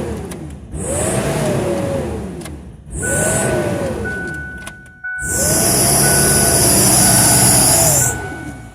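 A vehicle engine is revved hard three times, each rev climbing and falling back, and the last is held near the top for about three seconds before dropping. A high-pitched whine rides on top of each rev at high rpm.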